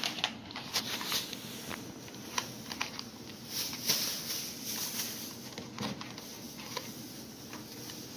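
Scattered light clicks, taps and rustles of objects being handled, irregular and brief, busiest around the middle.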